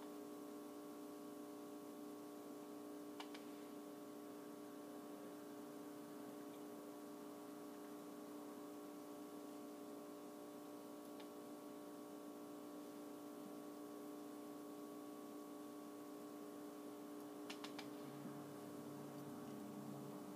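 Quiet room tone: a steady electrical hum, with a few faint ticks.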